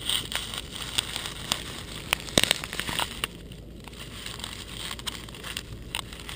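Puppies moving and nosing through grass right by the microphone: rustling and crackling with scattered clicks, busiest in the first three seconds, and a sharper knock about two and a half seconds in.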